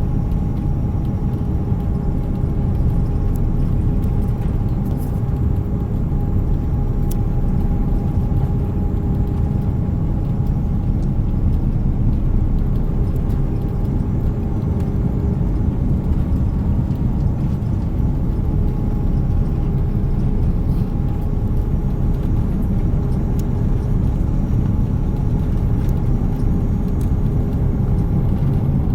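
Airliner cabin noise aboard an Airbus A330-300 in flight: a steady low rumble of engines and airflow with two steady engine hums that waver slightly in pitch.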